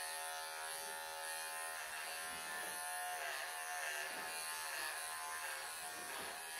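Wahl Professional pet clippers buzzing steadily as they shave through a longhaired cat's thick coat, the pitch sagging briefly a couple of times as the blades bite into the fur.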